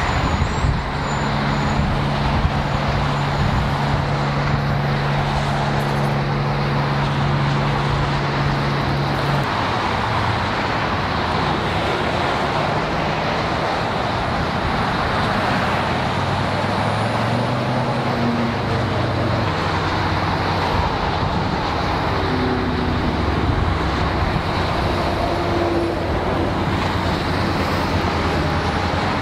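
Steady road traffic noise, with a low engine hum through about the first third that then shifts lower.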